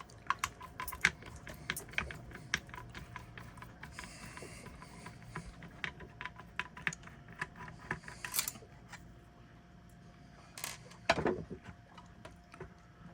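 Irregular small clicks and taps of a screwdriver and loose screws against a bread maker's plastic housing as screws are taken out, with a louder clatter about eleven seconds in.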